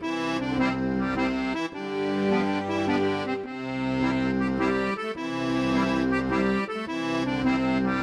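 Accordion music playing in a lively, rhythmic style with sustained chords changing every second or two.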